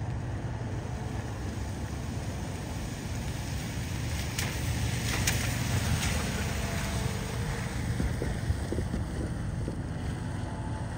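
Low, steady rumble of a CN freight train moving away into the distance, mixed with wind buffeting the microphone.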